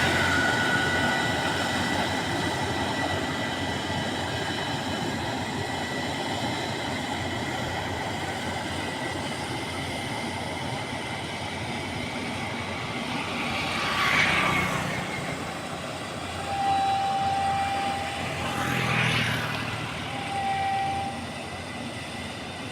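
Combine harvester running steadily under load, its engine and threshing machinery making a continuous mechanical din with a few constant whining tones. It swells louder twice, about fourteen and nineteen seconds in, and a steady high tone sounds on and off near the end.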